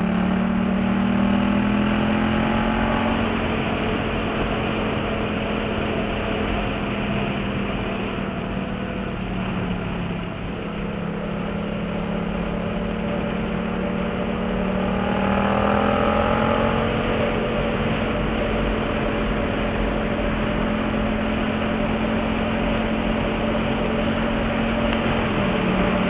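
Yamaha MT-07's parallel-twin engine through an aftermarket Jeskap GP Carbon exhaust, pulling under load in fourth gear up a mountain road, with wind rush. The engine note rises at the start, eases off for a while, climbs again about halfway through and dips briefly near the end.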